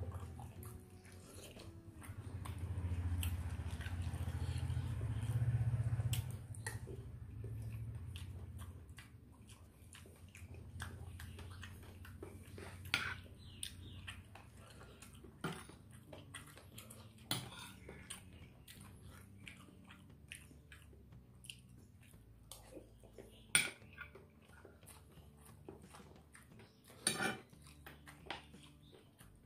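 Close-miked mouth sounds of chewing rice and soto betawi, with a low rumble through roughly the first eight seconds. After that it goes quieter, and a metal spoon clicks and scrapes on the plate every few seconds, the sharpest clicks coming in the second half.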